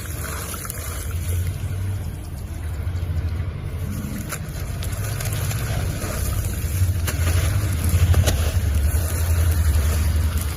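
Crumbled cement and dirt being mixed by hand in water: a steady low rumble with a few faint crunching clicks, louder toward the end.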